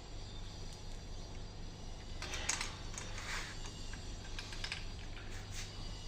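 Irregular light metallic clicks and scrapes of small steel parts and bolts being handled on an electric power steering rack, heaviest about halfway through, over a steady low hum.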